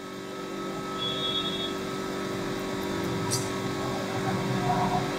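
Steady low hum of room machinery, with a faint click a little over three seconds in.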